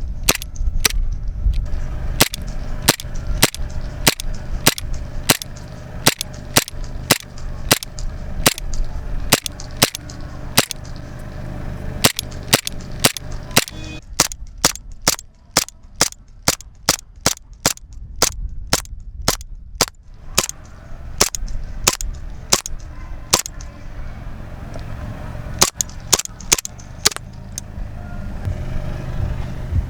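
WF M92 Beretta-style blowback airsoft pistol firing shot after shot in semi-auto, each shot a sharp crack with the slide cycling, about two a second. The string of shots ends near the end.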